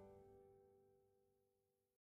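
Last held notes of the background music fading out into near silence.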